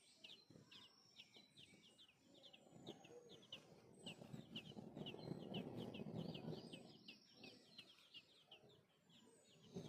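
Small birds chirping in rapid runs of short, high, down-sweeping notes, several a second. A low, rough rumble swells up in the middle and fades again.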